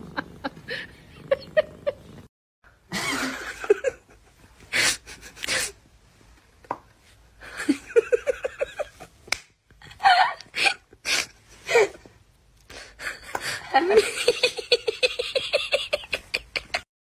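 A person laughing in several short fits of rapid, repeated 'ha-ha' pulses, with a few sharp clicks and taps between them.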